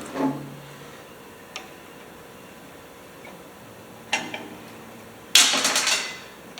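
A couple of light clicks from working on the carburetor linkage, then, about five seconds in, a small part dropped, clattering and bouncing several times in quick succession with a bright ring before it settles.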